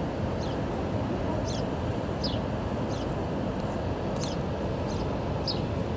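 Steady wash of Pacific surf rolling onto a sandy beach, with short high chirps that fall in pitch, repeating every half second or so.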